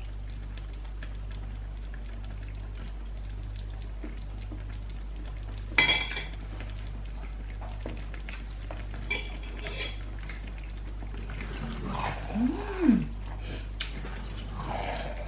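A metal utensil clinking and scraping in a stainless steel sauté pan of creamy pasta as pasta is lifted out: one sharp ringing clink about six seconds in, a few lighter clinks a few seconds later, and more scraping and clatter near the end, over a steady low hum.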